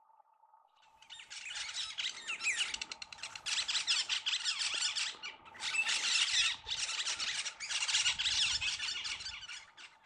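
A dense chorus of bird calls: many quick, high chirps and short gliding notes at once, in several stretches with brief breaks, starting and stopping abruptly.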